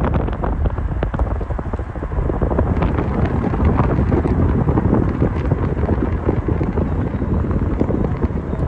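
Wind noise on the microphone at the open window of a moving car, rumbling and gusting unevenly.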